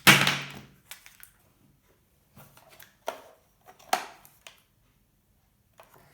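Handling noise from a tripod's quick-release shoe being taken off and fitted to a portable LED lamp: a loud scraping knock at the start, then a handful of separate sharp clicks.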